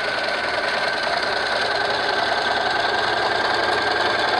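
Electric sewing machine running steadily, stitching a quarter-inch seam through two layered squares of fabric, with a steady whine over the even run of stitches.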